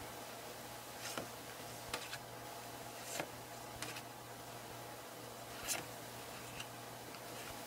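Glossy photo prints and card being handled and flipped through by hand. There are soft, short ticks and paper rustles at irregular intervals, about one a second, with the loudest about two thirds of the way in.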